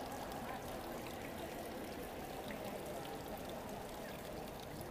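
Steady background hubbub of a large, echoing gallery hall, a faint wash of distant indistinct voices with no clear words.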